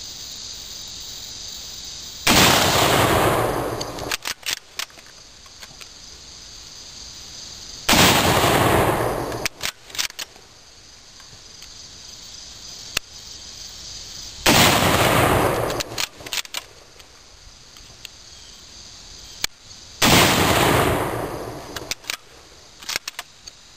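Russian bolt-action rifle fired four times, about six seconds apart. Each loud shot rolls away in an echo lasting a second or more, and is followed by the metallic clicks of the bolt being worked to chamber the next round. Insects chirr steadily underneath.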